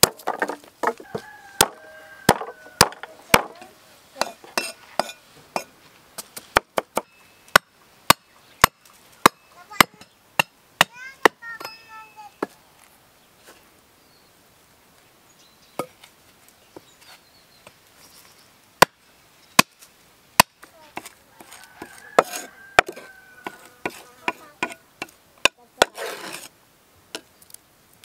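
Sharp chopping strikes of a blade on a wooden stump: quick runs of knocks as a cleaver smashes and chops garlic cloves, and a few single blows through the middle of the passage.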